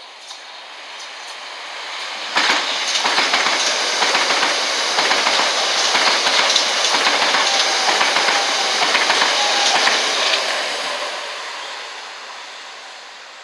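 A Southern Class 377 Electrostar electric multiple unit passing through the station at speed without stopping. It grows louder as it approaches, jumps to a loud rush of wheel clatter on the track about two seconds in as the front draws level, holds for about eight seconds while the coaches go by, then fades away.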